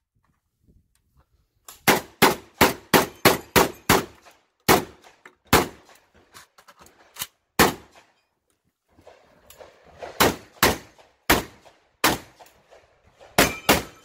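Gunshots from a box-magazine semi-automatic shotgun shot at speed on a practical shooting stage: a quick string of seven shots about three a second, a few more spaced shots, a pause of about two seconds, then further shots ending in a quick pair near the end.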